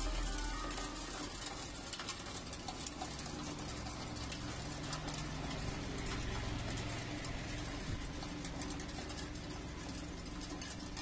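Areca nut (supari) cutting machine running: a steady hum under a constant rapid clicking and rattling.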